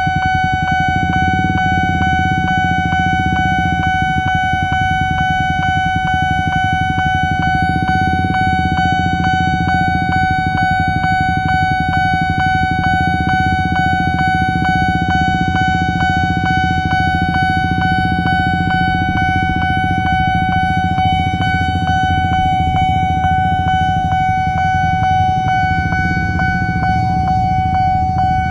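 Nippon Signal electronic level-crossing alarm sounding without a break: a steady ringing tone pulsed in quick, even repeats. It is the warning that the crossing is closed for an approaching train.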